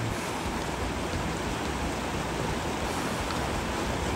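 River water rushing steadily, an even hiss with no engine or other distinct sound standing out.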